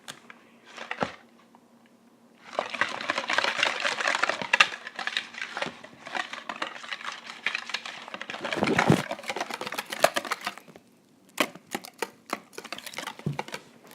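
Glue-and-starch slime being mixed with a whisk in a bowl: rapid sticky clicking and scraping starts about two and a half seconds in, then thins to scattered clicks near the end.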